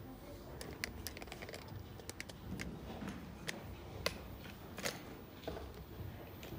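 Scattered light clicks and taps at an irregular pace, one a little stronger about five seconds in, over a low room rumble.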